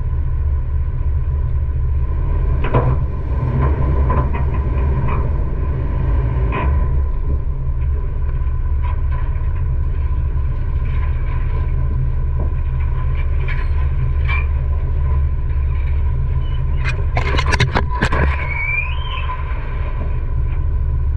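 Steady low rumble with scattered knocks and scrapes, a dense cluster of them near the end, followed by a short rising-and-falling chirp.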